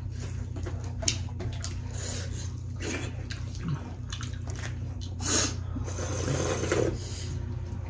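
Close-up wet eating sounds: chewing and lip-smacking, and fingers mashing dhido and soup on a metal plate, with short clicks. In the second half a slurp of soup from a small bowl is the loudest sound.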